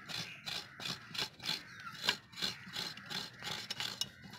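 Half a coconut being grated by hand on a traditional floor coconut scraper. The shell is drawn repeatedly across the serrated metal blade, giving a rasping scrape about four times a second.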